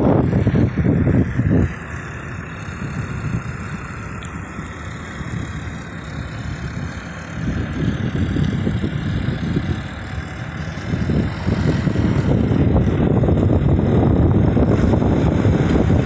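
Tractor engine running close by while it turns with its reversible plough lifted. The sound drops back for a few seconds near the start, then grows louder again from about halfway through.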